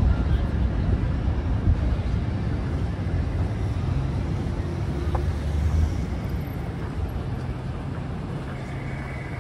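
City road traffic at a crossing: a taxi pulls slowly past close by over a steady low rumble of traffic, which eases off about six seconds in.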